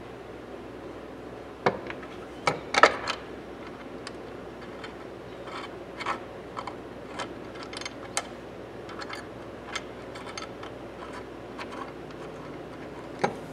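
Light metal clicks and clinks of steel oil filter pliers being handled and put back together at the pivot and spring, with a cluster of louder clinks about two seconds in and lighter scattered ticks after.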